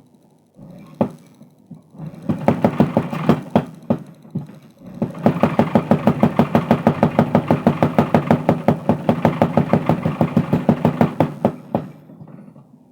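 Mechanical power hammer pounding a hot steel bar being forged into a crowbar, striking several times a second in even rhythm. A few single knocks come first, then a short run of blows about two seconds in, and a longer steady run from about five seconds in that stops shortly before the end.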